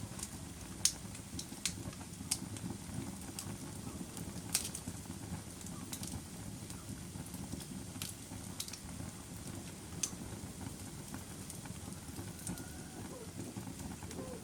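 Wood fire crackling: sharp pops come at irregular intervals, a few seconds apart, over a steady low rumble of burning flames.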